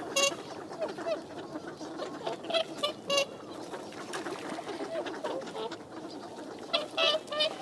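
A flock of whooper swans and ducks calling together: a dense, continuous chatter of many overlapping quacks and calls, with a few louder, sharper calls standing out.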